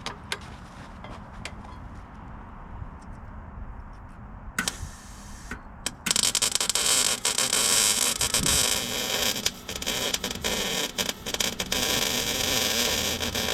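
Small 110-volt Eastwood MIG 135 welder, argon-shielded, arc-welding a steel pin and sleeve: a short crackling burst about five seconds in, then a steady arc crackle from about six seconds in to the end, broken by a few short pauses. Before the arc starts, wind rumbles on the microphone.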